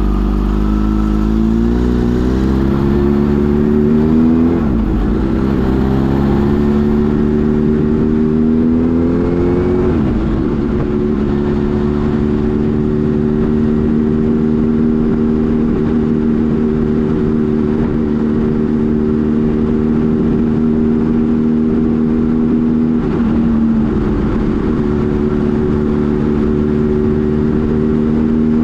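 Kawasaki Z H2 SE's supercharged inline-four accelerating hard, its note rising and breaking twice at upshifts in the first ten seconds, then running at a steady engine speed while cruising, with a brief drop in the note about three-quarters of the way through.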